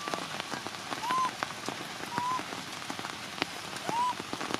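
Infant macaque crying, four short cries that each rise and fall in pitch, the distress calls of a frightened baby monkey. Steady heavy rain and scattered drips sound throughout.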